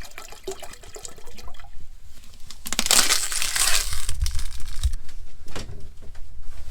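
Water poured from a plastic bottle, with crinkling and handling clicks of the bottle around it. The pour is a loud hiss of about a second and a half near the middle.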